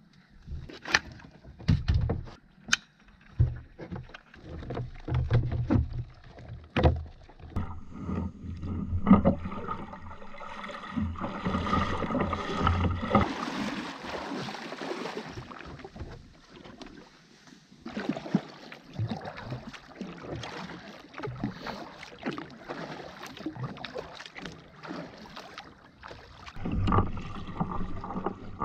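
Hollow plastic knocks and clunks as a wheeled kayak trolley is stowed in the front hatch of a plastic sit-on-top kayak. Then comes splashing from wading through shallow water beside the kayak, about eleven seconds in. After that, paddle strokes dip and splash.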